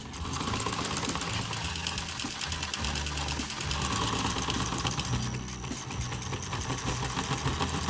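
Lionel O-gauge steam locomotive's electric motor and gears running on test: a steady, fast mechanical rattle over a low hum.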